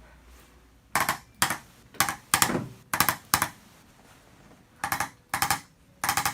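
Percussive massage on the upper back and shoulder: about nine short bursts of rapid tapping at irregular intervals, starting about a second in.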